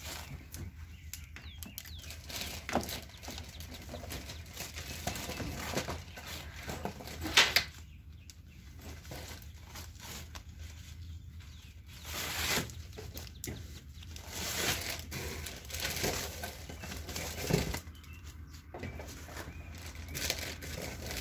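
Pop-up soccer goal's net fabric and pole sleeve rustling and flapping as a frame pole is worked into it by hand, with scattered light clicks and knocks of the pole and fittings; one sharper knock about seven seconds in.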